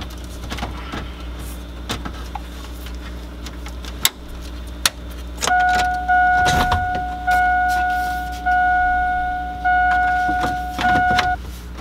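Sharp plastic clicks and knocks as a radio dash kit and trim bezel are handled in a 2000 GMC Sierra's dash. From about halfway the truck's warning chime dings over and over, a bit less than once a second apart, each ding fading before the next.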